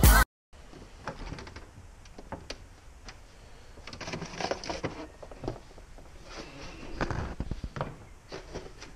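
Background music cuts off right at the start, then the handling sounds of kitchen work: scattered light clicks, knocks and rustling as an open refrigerator is reached into and a container is moved on its shelf.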